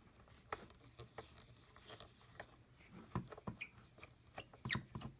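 Small screwdriver turning screws out of a plastic vacuum housing: faint scraping and clicking, with a few sharper ticks about three seconds in and again near the end.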